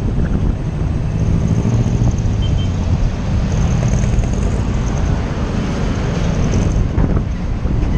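Steady rush of wind and road noise from a moving vehicle on the road, with a low engine hum underneath.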